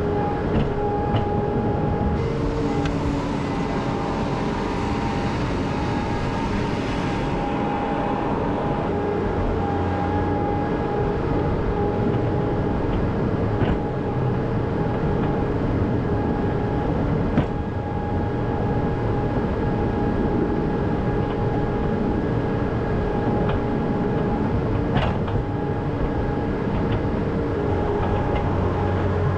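A machine running steadily with an engine-like hum that holds several steady tones. A hiss rises over it between about two and seven seconds in, and a few sharp clicks break through later.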